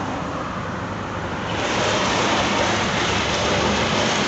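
Road traffic: a low engine hum under a steady rush of road and wind noise, which grows louder about a second and a half in.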